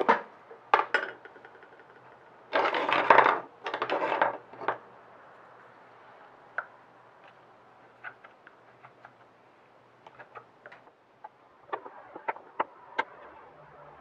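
A wooden spoon clacking down onto a wooden tabletop, a couple of sharp knocks. Then a plastic tub is handled with loud rustling plastic, followed by scattered light clicks and taps as fingers work at the tub.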